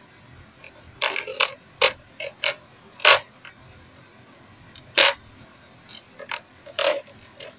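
Hard plastic Hess toy police car being handled and turned over in the hand: a string of irregular clicks and knocks, the loudest about three and five seconds in. No siren is sounding.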